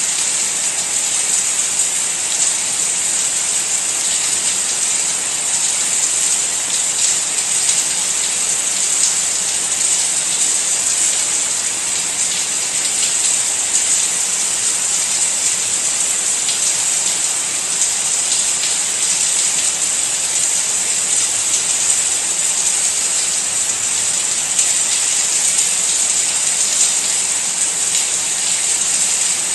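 Steady rain falling: an even, high hiss with faint pattering of drops, unchanging throughout.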